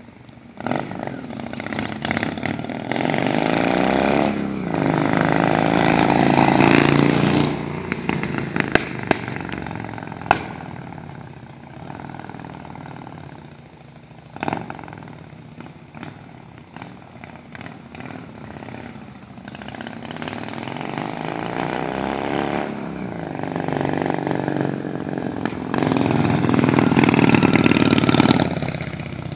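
Honda Shadow 600's V-twin engine as the motorcycle rides past twice, each pass swelling to a peak and fading away, with the engine note bending in pitch as it goes by.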